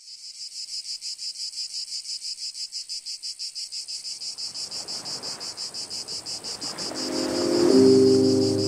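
Insects singing: a high, even, pulsing buzz at about six or seven pulses a second. Music swells in beneath it near the end.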